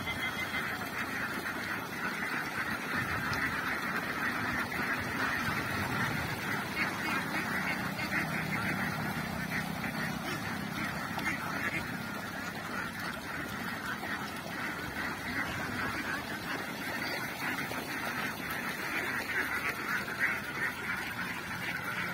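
A large flock of Kerala ducks quacking together, a dense, continuous chatter of many overlapping calls.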